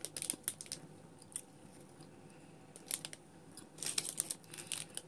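Small plastic chocolate wrapper crinkling in the hands in scattered crackles, busiest about four seconds in, along with chewing of a white chocolate with pecan nuts.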